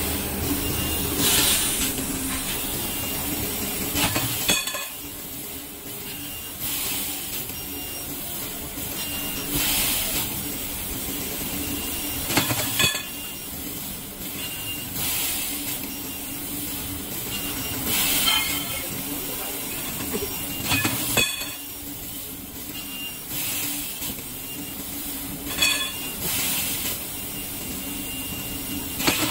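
CNC laser tube-cutting machine cutting a metal tube: a steady hiss of assist gas from the cutting head, swelling into louder gas blasts every few seconds, over a steady low machine hum, with a few sharp clicks.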